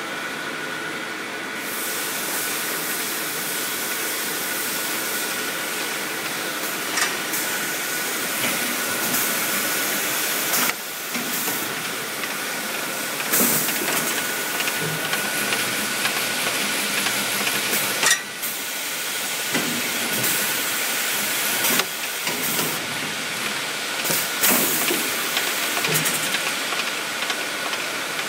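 PET water-bottle packing line running: a steady hiss with a thin, high steady whine, broken every few seconds by a sharp clack as the film-wrapping packer handles groups of bottles.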